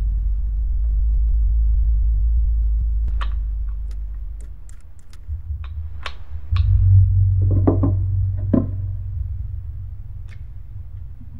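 A deep rumbling drone with a scattering of sharp metallic clicks and knocks from a revolver's cylinder and action being handled. The drone fades midway and swells again about two-thirds through, with a cluster of heavier knocks soon after.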